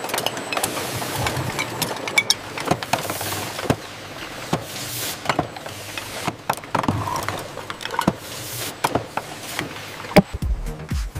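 Bottling-line machinery running: a steady mechanical hiss with irregular clicks and clatter of bottles and mechanisms. Near the end, electronic dance music with a thumping bass comes in.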